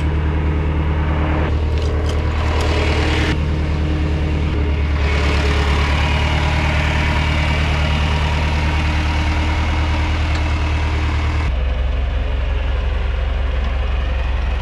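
A tractor engine running at a steady speed with a deep, even hum. A rushing noise over it swells in the middle and cuts off suddenly about eleven and a half seconds in, while the engine keeps running.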